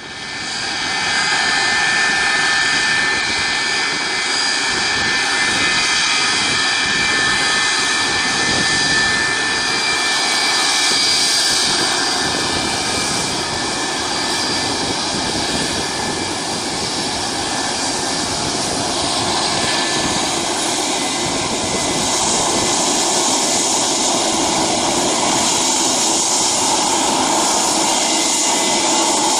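McDonnell Douglas MD-80-series airliner's rear-mounted Pratt & Whitney JT8D turbofans running at taxi power: a loud, steady jet rush with several high whining tones over it, easing slightly midway and swelling again near the end.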